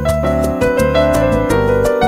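Background music with piano.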